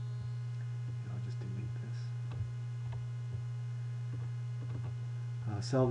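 Steady low electrical hum, with a few faint clicks scattered through it.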